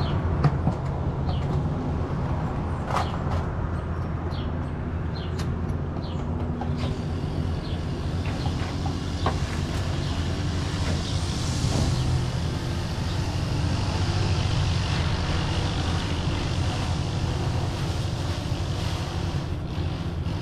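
An engine idling steadily with a low, even hum. Several sharp clicks and taps sound in the first seven seconds.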